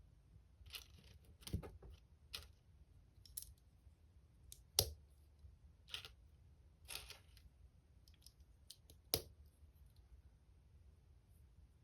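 Plastic LEGO pieces clicking as they are handled and pressed together: about ten irregular small clicks and snaps, the sharpest about five and nine seconds in.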